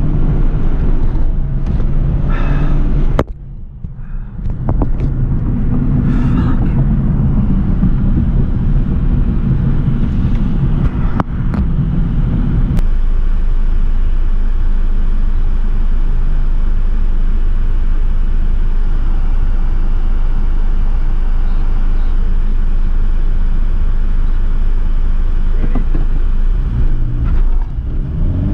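Honda Civic's engine and tyres heard from inside the cabin on an autocross run: the engine works under load over a steady low rumble. About three seconds in it falls off sharply for a second or so before pulling again, and near the end the engine pitch climbs as it accelerates.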